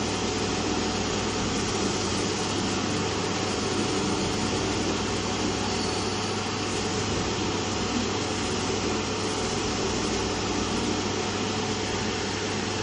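Hot air rework station blowing a steady rush of air through its nozzle, with a low hum underneath, while it heats a QFN64 chip to reflow the solder.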